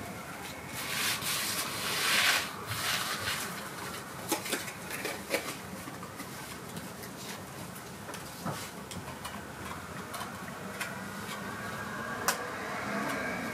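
Calico cat grooming itself close to the microphone: rasping licks against its fur, heaviest in a run of strokes one to three seconds in, with a few sharp clicks later on.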